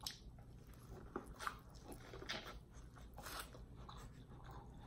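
Faint, close-miked eating sounds: biting into boiled corn on the cob and chewing it, a scattering of short soft crunches.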